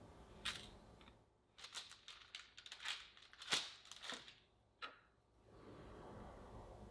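A round metal cookie cutter pressing through rolled cookie dough on parchment paper and being handled: a run of short clicks, scrapes and paper crinkles, the sharpest about halfway through, followed by a quieter scrape as a spatula slides under the dough.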